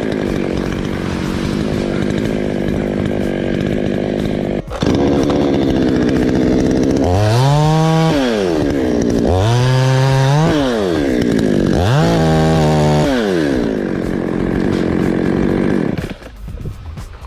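Two-stroke chainsaw running hard, its engine pitch dipping and rising again three times in the middle. The sound breaks off for a moment about five seconds in and falls away near the end.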